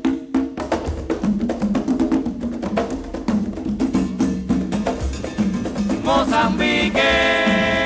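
Cuban mozambique-rhythm band recording: a busy percussion pattern of sharp, fast strikes over a low drum line. Near the end, pitched parts swell into a held chord.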